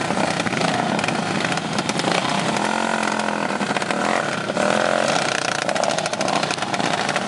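Racing lawn mower engines running hard, one engine's pitch bending up and down in the middle as a mower passes. Near the end a close mower's engine pulses rapidly as it goes by.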